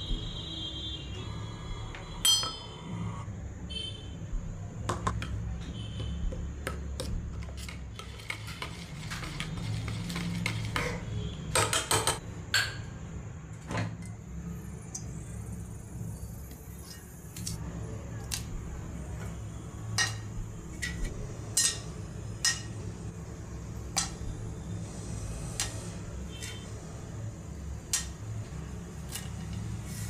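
Kitchen utensil sounds: a steel spoon clinking and scraping in a stainless steel bowl, then handling of an aluminium pressure cooker. There is a scattered string of sharp clinks and knocks, with a brief ringing tone in the first few seconds, over a steady low hum.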